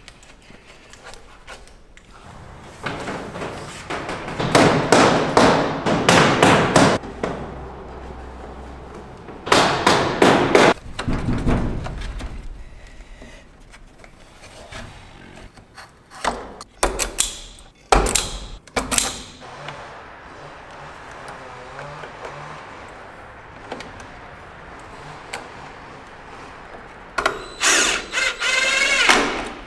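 Hands working electrical cable into a plastic outlet box: bunches of rustling, scraping and sharp clicks with quiet gaps between. Near the end a cordless drill-driver whirs in short runs as it drives screws at the box.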